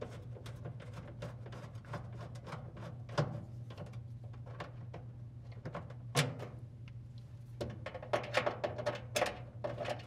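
Screws being backed out of a plastic dryer lint-filter cover with a screwdriver and the cover being handled: irregular light clicks and plastic rattles, a sharper knock about three seconds in and another about six seconds in, and a run of clatters near the end, over a steady low hum.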